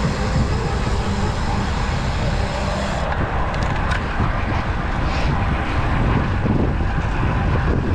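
Wind rushing over the microphone of a moving road bike, with its tyres rolling on asphalt: a steady, loud rush, heaviest in the low end, whose highest hiss dulls about three seconds in.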